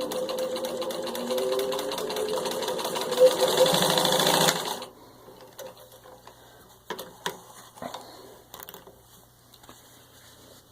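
Singer 15-91 sewing machine, with its direct-drive potted motor, running at speed and stitching through six layers of denim: a fast, even needle chatter over a steady motor hum. It grows louder about three seconds in and stops suddenly a little before halfway, followed by a few light clicks.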